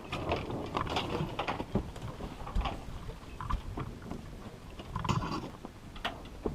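Irregular knocks, clicks and creaks aboard a sailboat moving slowly in a light breeze, with a short creak about five seconds in.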